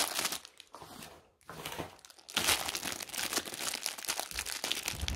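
Plastic packaging crinkling as hands work open a diamond painting kit's bag. The crinkling drops away about a second in and starts up again more continuously about two and a half seconds in.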